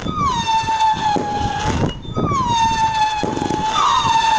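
Whistling fireworks going off one after another. Each whistle opens with a short downward slide, then holds a steady shrill note for a second or two. A new one starts about every two seconds, two overlapping near the end, with sharp pops and bangs among them.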